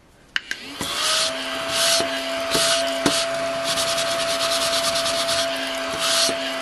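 Small battery-powered desk vacuum starting up about half a second in, its motor rising to a steady whine, as it is run over a paper sheet to pick up scratch-off shavings. Its brush swishes across the paper about once a second.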